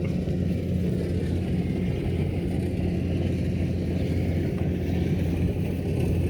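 Rice harvester's engine running steadily, a constant low drone.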